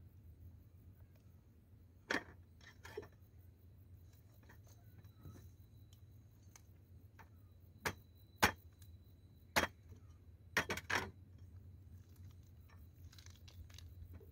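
Scattered sharp clicks and knocks of kitchen utensils and dishes being handled, about eight in all and irregularly spaced, the loudest a little past the middle. A low steady hum runs underneath.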